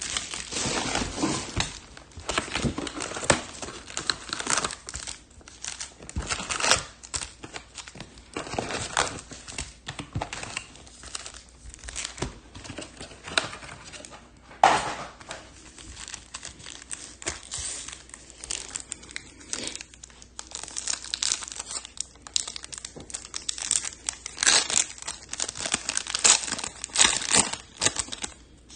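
Plastic wrappers crinkling and tearing in irregular bursts as 2022 Topps Chrome trading card packs and their box are opened by hand.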